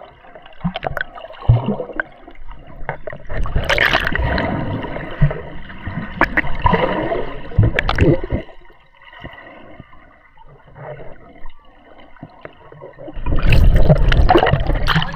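Sea water splashing and gurgling around snorkelers going under. It is louder for about five seconds from roughly four seconds in, and again near the end.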